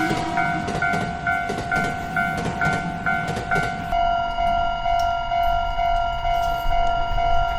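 Japanese level crossing's electronic warning bells ringing in a steady kan-kan rhythm, about two strikes a second. During the first half a train clatters past under the bells. About four seconds in the clatter stops and the bells ring on with a fuller, overlapping tone.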